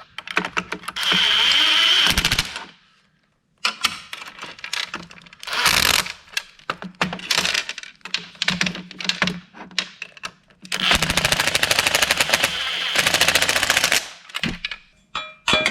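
Cordless impact wrench with a socket hammering bolts down in several bursts of rapid impacts, the longest run near the end, as the table's legs are bolted on.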